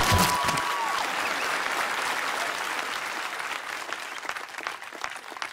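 Crowd applauding, the clapping dying away over the few seconds.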